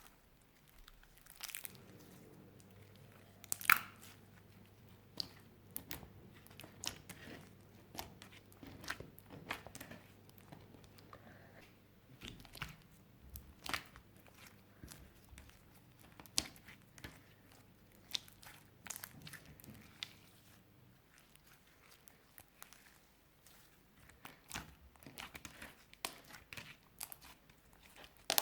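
Clear slime being kneaded and pressed by hand with crushed eyeshadow mixed in, giving irregular sticky clicks and crackles.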